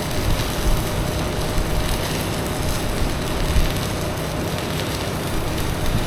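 Stick (arc) welding: the electrode's arc crackling and sputtering steadily, with small irregular pops, as a weld is run on a cracked steel excavator bucket.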